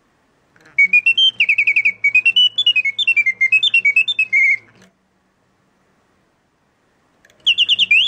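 Antique French singing bird box's brass piston whistle playing birdsong: a run of rapid chirps and warbling trills rising and falling in pitch for about four seconds, then a pause and a short new phrase near the end. A faint low hum runs under the song.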